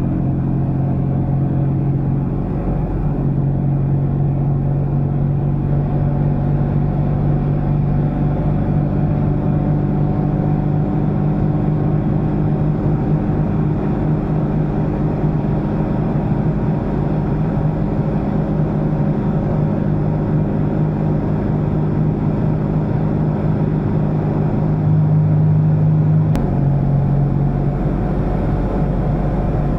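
Fiat 126p's rear-mounted air-cooled two-cylinder engine droning steadily at cruising speed, heard from inside the small car's cabin with road and tyre noise. The drone grows a little louder and the sound changes abruptly near the end.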